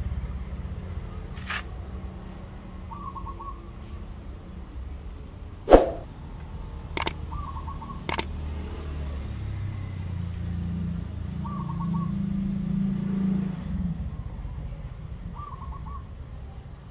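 A bird repeating a short trilled call about every four seconds over a steady low rumble, with a few sharp knocks, the loudest about six seconds in.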